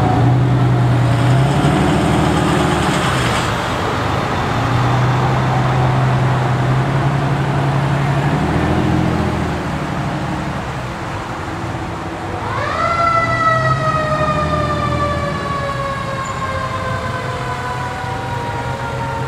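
Truck and car engines running as a line of vehicles creeps past. About twelve seconds in, a mechanical siren winds up quickly and then slowly winds down in pitch over several seconds.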